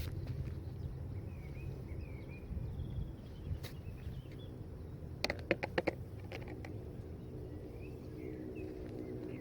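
Outdoor river-bank ambience: birds chirping briefly a few times over a steady low rumble, with a quick run of sharp clicks about five seconds in.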